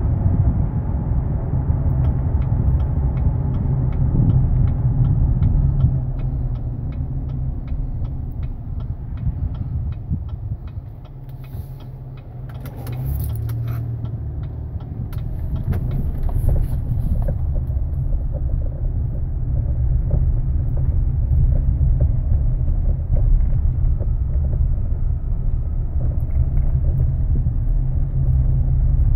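Steady in-cabin road and drivetrain rumble of a 2015 GMC Canyon on the move. Runs of short clicks and pops sound over it, mostly in the first third and again around the middle. This is the Canyon's front-end popping and clunking on uneven surfaces, a fault fixed by a redesigned intermediate steering shaft.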